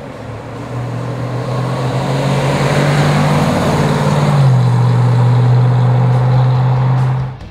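1970 Ford Mustang Mach 1's 351 Cleveland V8 through its dual exhaust, driving by. The engine note grows louder as the car approaches, drops in pitch as it goes past about halfway through, and cuts off suddenly near the end.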